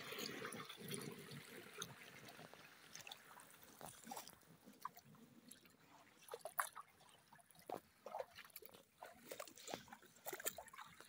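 Faint irrigation water flowing: a steady rush of water for the first couple of seconds, then fainter running water with scattered small ticks and splashes.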